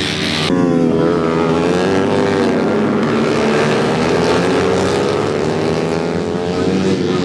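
Several small racing motorcycle engines revving hard, their pitch falling and rising with the throttle as the bikes pass through a corner. About half a second in, the sound changes abruptly as a high hiss drops away.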